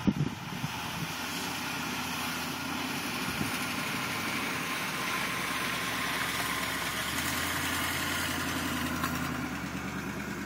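Lifted Chevy 4x4 mud truck's engine running as it drives slowly through soft clay, growing louder as it passes close and then fading as it moves away near the end.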